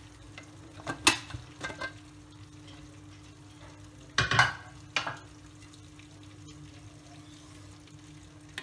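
Metal clinks and knocks of an aluminium pressure cooker and its lid being handled as the cooker is opened: a sharp clink about a second in, a few lighter ones just after, and a louder cluster of knocks about four seconds in, with one more a second later.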